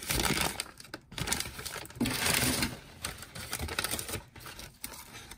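Brown paper produce bag rustling and crinkling as hands reach into it and handle the vegetables, in several uneven bursts.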